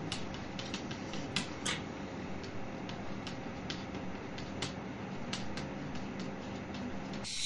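Chalk tapping and clicking against a blackboard in short, irregular strokes as a calculation is written, over a steady hum that cuts off near the end.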